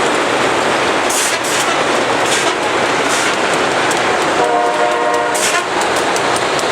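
Loram rail grinding train grinding the rail as it passes: a loud, steady, harsh grinding hiss. About four seconds in, its horn sounds once for just over a second.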